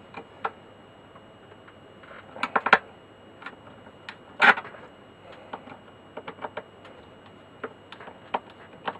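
Irregular small clicks and taps of a screwdriver and loose parts being handled as a panel is unscrewed and taken back off a record player cabinet: a quick cluster of clicks about two and a half seconds in, one louder knock near the middle, then a run of light ticks.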